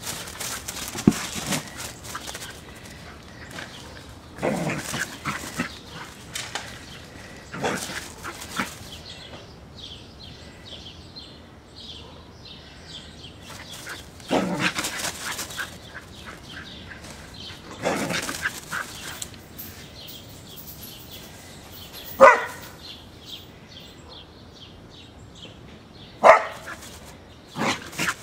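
Deaf double merle Australian Shepherd barking in short scattered bursts every few seconds, the two sharpest and loudest barks about two-thirds of the way through and near the end.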